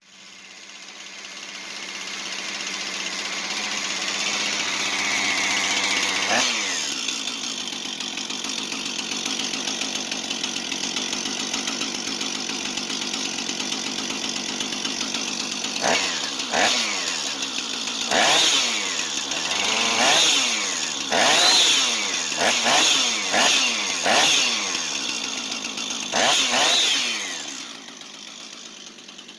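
Freshly rebuilt Husqvarna 455 Rancher two-stroke chainsaw engine running with no chain fitted: high and steady at first, dropping to a lower idle about six seconds in. It idles, then is blipped up and back down about nine times in the second half, and dies away near the end.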